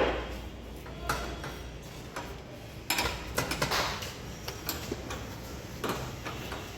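Scattered metallic clinks and knocks of hand tools and fasteners during mechanical work. The loudest is right at the start, with a quick cluster about three to four seconds in.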